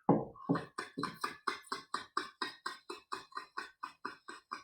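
Quick tongue taps, "tu tu tu", with the tongue tip striking the reed and the tip of a clarinet mouthpiece. The short, even clicks come about five a second, with no air tone and no reed buzz: the tonguing stroke used to start a note.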